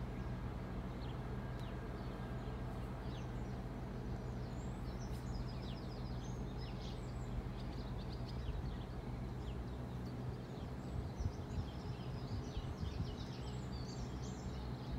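Small birds chirping in short scattered calls over a steady low outdoor hum.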